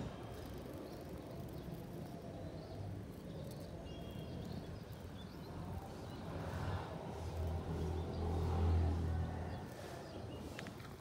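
Outdoor background noise with a low engine hum that grows louder from about six seconds in, peaks near nine seconds and fades again, like a motor vehicle passing.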